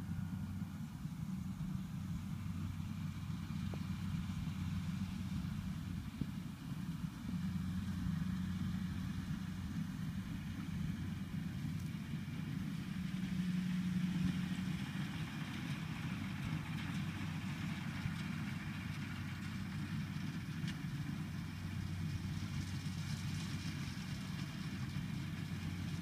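Engine of a rice combine harvester running steadily as it works the paddy, a low continuous hum that swells slightly about halfway through.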